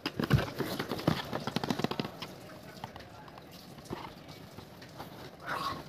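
Cardboard packaging handled by hand: a quick run of taps, knocks and rustles over the first two seconds, then quieter handling.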